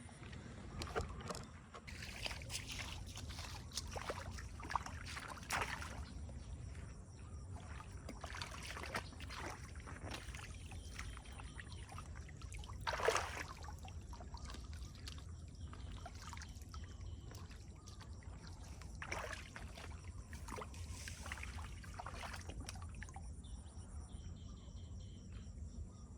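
Floodwater splashing and sloshing in irregular bursts over a steady low rumble, with the loudest splash about halfway through.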